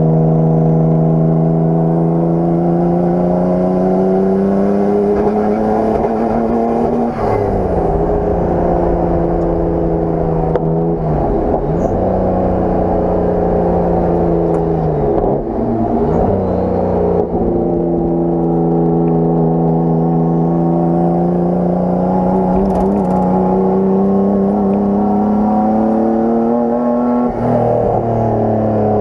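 Nissan Skyline R32 GT-R's twin-turbo straight-six pulling under load, its pitch climbing steadily and then dropping sharply at each gear change or lift, about five times. The car has a misfire under load, according to its owner.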